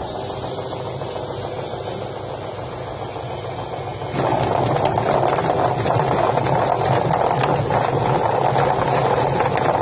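Drum-type duck-plucking machine running steadily with a motor hum, getting suddenly louder and fuller about four seconds in.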